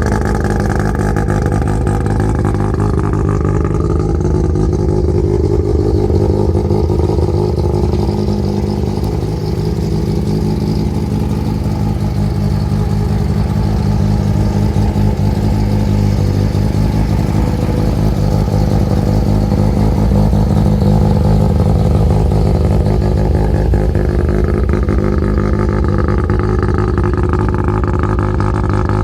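Rotary engine of a rotary-swapped Nissan S13 idling steadily through a Blitz Nür muffler, its pitch drifting slightly a couple of times.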